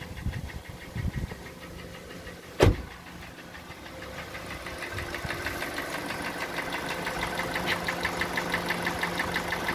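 Kia G4NA 2.0-litre four-cylinder engine running with a steady, rhythmic knock that grows gradually louder in the second half; the owner expects the usual cylinder scuffing behind it. A single sharp bang comes about two and a half seconds in.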